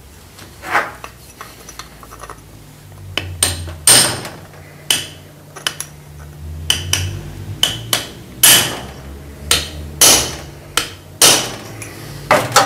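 Hammer blows on a bare Fiat 1.7 diesel cylinder head: about a dozen sharp, irregularly spaced metallic knocks, some ringing briefly.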